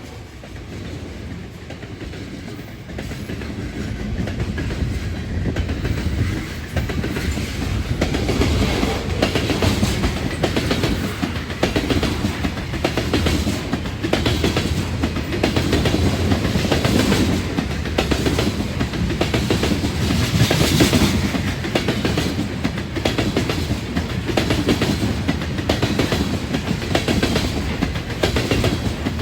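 A train passing close by, its cars rolling past with a steady clickety-clack of wheels over rail joints. The sound swells over the first several seconds, then holds loud.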